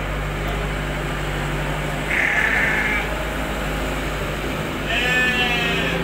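Sheep bleating: two calls of about a second each, one about two seconds in and a clearer, more tonal one near the end, over a steady low hum.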